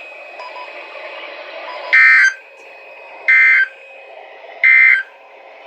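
NOAA Weather Radio broadcast sending three short bursts of warbling digital data tones, about a second and a half apart, over faint radio hiss. These are the SAME end-of-message code that closes the Required Weekly Test.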